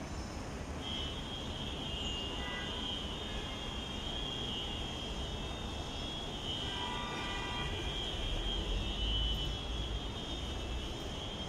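Outdoor city ambience: a low rumble of distant traffic, with a high steady buzz that starts about a second in.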